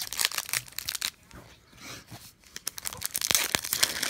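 Foil Pokémon booster pack wrapper being torn open and crinkled by hand: sharp crackling, thinning out around the middle and densest near the end.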